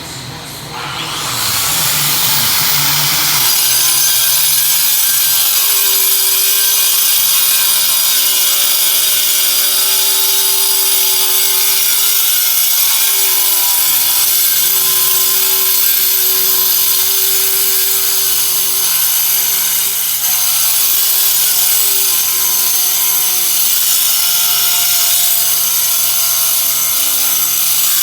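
An electric power tool spins up over the first few seconds, then runs steadily with a high whine, cutting material. Its pitch sags briefly under load around the middle and again about two-thirds of the way in.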